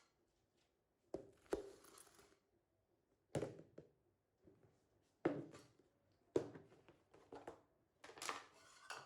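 Handling noise: about seven irregular knocks and clunks, each followed by brief rustling, as objects are picked up and set down.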